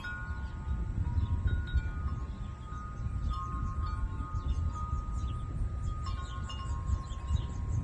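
Wind chimes ringing, with several overlapping tones around the same register struck at irregular moments and left to fade. A loud, uneven low rumble runs underneath.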